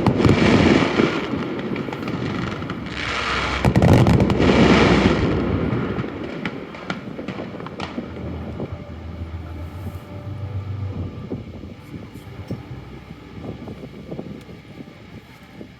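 Aerial fireworks going off: two loud booming bursts, about a second in and about four seconds in, followed by a long run of scattered crackling pops that slowly fades.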